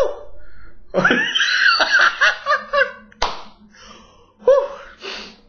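A man's hand claps, two sharp ones about three seconds apart. Between and after them his voice breaks into wordless exclamations.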